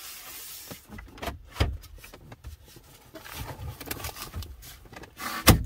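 Plastic dash trim around the climate-control panel of a 2010 Dodge Journey being handled and fitted back into place: scattered light clicks and knocks, with one loud knock near the end.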